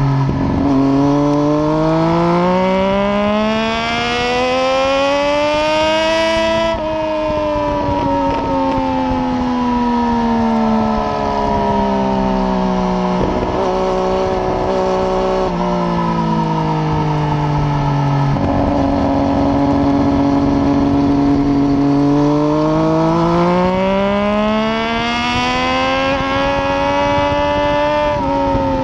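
Triumph Daytona 675's inline three-cylinder engine through a de-catted Arrow exhaust with no baffle, ridden hard on track. The revs climb, then fall away slowly from about seven seconds in as the bike slows. They jump up once about eighteen seconds in, climb again, and shift up just before the end.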